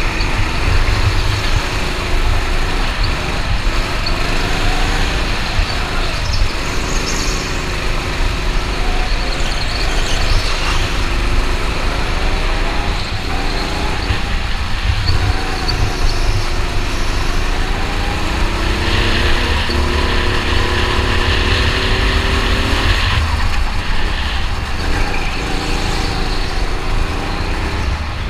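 Go-kart engine heard from on board, its pitch rising and falling again and again as the kart speeds up along the straights and slows for corners, over heavy wind rumble on the microphone.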